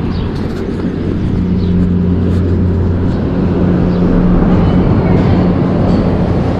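Gondola terminal machinery running: a steady low hum with two held low tones, growing louder over the first few seconds, with faint light clicks above it.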